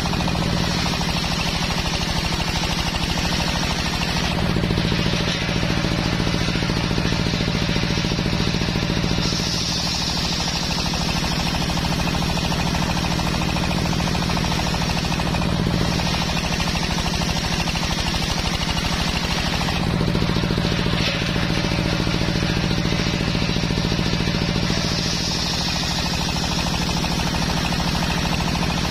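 Belt-driven table circular saw running continuously as a teak beam is pushed through its blade, a loud steady machine noise whose higher hiss rises and falls every few seconds as the cut loads and eases.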